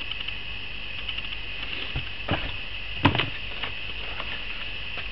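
Handling of lure packaging, plastic lure packs and a cardboard box: scattered light clicks and a few knocks, the loudest about three seconds in, over a steady high background hiss.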